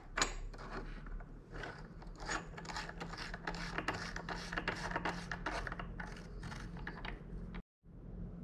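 E-bike chainring lockring being spun onto its threads by hand: a dense, irregular run of small clicks and scrapes that stops abruptly near the end.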